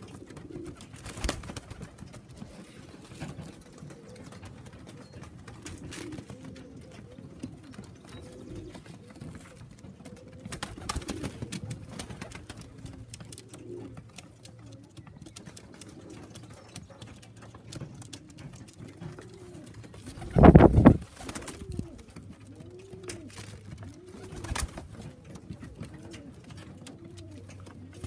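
Homing pigeons cooing, a low rising-and-falling coo repeated over and over and most continuous in the second half. A loud brief thump comes about three-quarters of the way through, and there are scattered light clicks.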